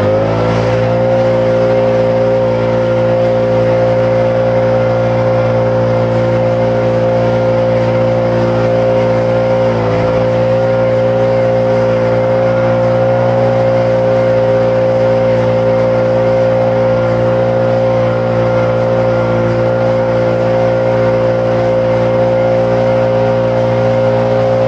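Small engine running steadily at high throttle, with a strong steady whine over a low hum; its pitch dips briefly near the start and again about ten seconds in.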